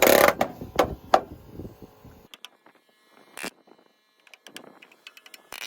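Nailing into wood: a quick run of sharp knocks as nails are driven, fading out about two seconds in, followed by a few scattered clicks.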